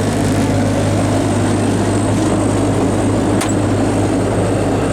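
2002 Bobcat 337D excavator's diesel engine running steadily, with a single sharp click about three and a half seconds in.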